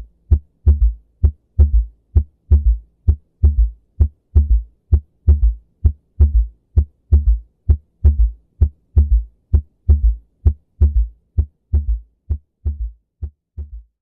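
Heart sounds with an S3 gallop: a low extra third sound follows the second heart sound in each beat, giving a three-part rhythm of about one beat a second. The beats grow fainter near the end.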